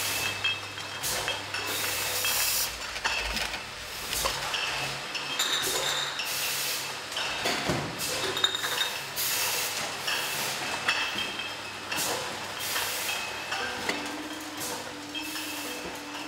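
Glass wine bottles clinking and knocking against each other on a bottling line, irregular and frequent, over the steady hum of the machinery.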